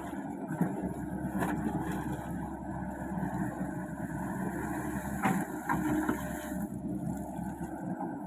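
Komatsu PC55 mini excavator's diesel engine running steadily while digging a ditch, with a few short sharp knocks over it.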